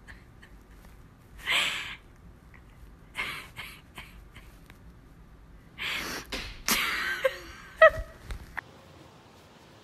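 A dog snorting and snuffling in short breathy bursts with its nose pushed into an armchair cushion. Near the end there are a few short, sharp squeaks, the loudest of them about eight seconds in.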